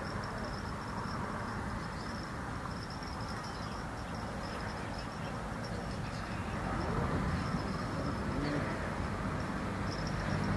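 Steady outdoor background: a low rumble with a thin, high, wavering buzz like insects above it.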